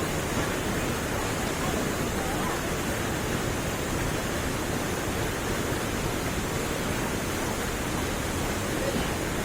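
A waterfall rushing: a loud, steady roar of falling water that does not change.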